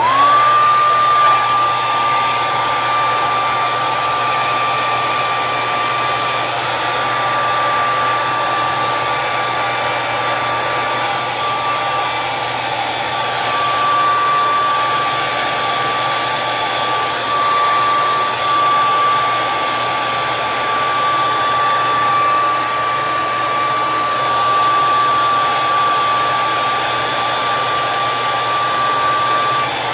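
Handheld hair dryer switched on, its motor spinning up within the first second to a steady high whine over the rush of blown air, then running continuously.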